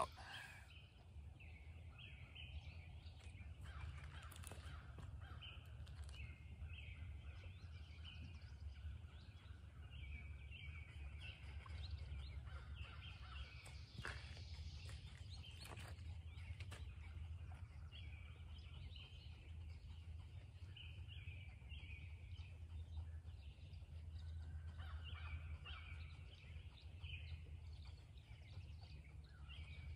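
Songbirds singing and chirping, many short repeated calls throughout, over a low steady rumble. A few faint clicks sound now and then.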